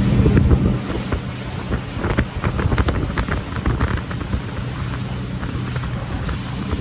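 Tour boat's motor running with wind buffeting the microphone; the motor's low hum drops away about a second in, leaving wind noise and water slapping and splashing against the hull.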